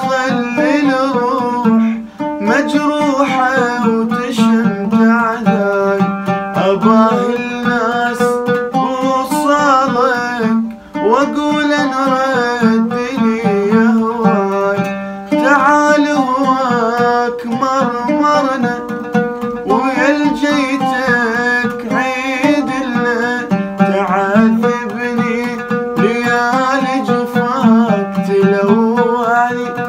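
An oud played with rapid plucked notes, accompanying a man singing an Iraqi song in a bending, melismatic line, with a few short breaths between phrases.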